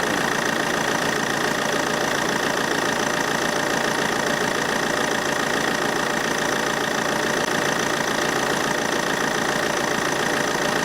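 Car engine idling steadily with a steady high whine, the air conditioning running so the compressor draws in refrigerant as it is recharged.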